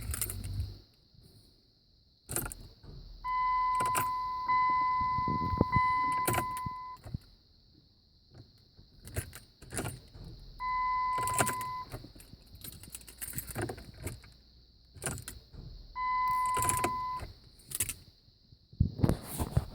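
Keys jangling and clicking at the ignition of a car that won't start, with no engine running or cranking. A steady electronic warning tone sounds three times: about four seconds long at first, then twice for about a second each.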